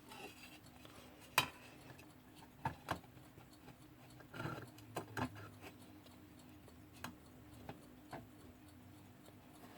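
Scattered light clicks and taps from a vintage Jakob Palmtag alarm clock being handled, its hands and case checked by hand, with a sharper click about a second and a half in. A faint steady hum lies underneath.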